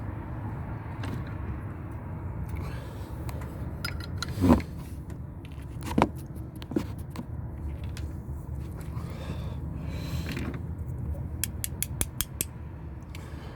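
Small metal parts and hand tools being handled while a short shift plate is fitted to a car's shifter linkage: light clinks and scrapes, a sharp knock about four and a half seconds in, and a quick run of about six light clicks near the end.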